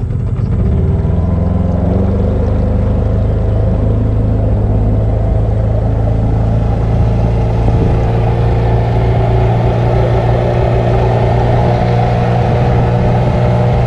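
A boat's outboard motor drives a river canoe at a steady cruising speed, a continuous low engine drone. It picks up a little in pitch about two seconds in and then holds steady.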